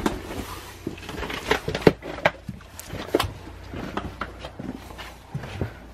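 Footsteps walking along the corridor floor of an abandoned railway carriage: a run of irregular knocks and clicks from steps and scuffs.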